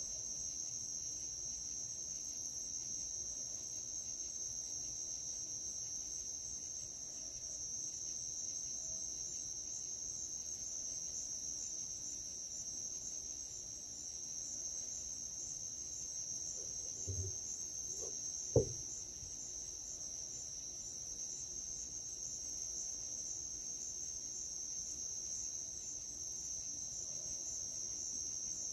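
A steady, high-pitched chorus of crickets calling on a late-summer night. A single sharp click cuts in about two-thirds of the way through.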